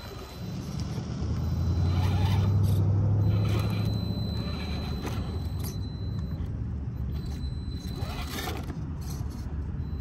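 Scale RC rock crawler with a brushed motor driving over rough ground: a low motor and drivetrain drone that swells for a few seconds, with scraping and crunching from the tyres and chassis on the terrain.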